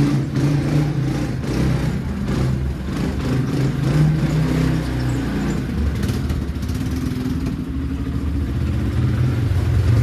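ATV engine running at low revs, its pitch rising and falling with the throttle as the quad drives through a tunnel.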